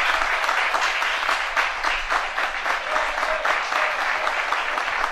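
Applause: many hands clapping in a dense, steady run of claps.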